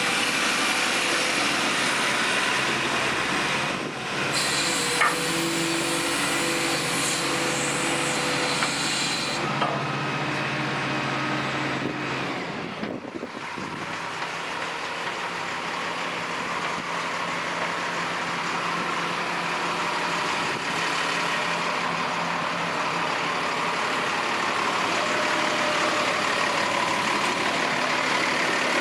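Caterpillar 320 BL hydraulic excavator running, its diesel engine going steadily throughout. The sound changes abruptly twice, about 4 and 9 seconds in.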